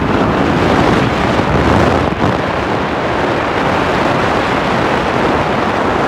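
Steady rushing wind noise on the microphone of a moving vehicle, mixed with road noise.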